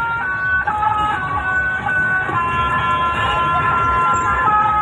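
Telolet multi-tone horn playing a tune: two or three horn notes sound together and step to new pitches about every half-second to a second. A low vehicle rumble runs underneath.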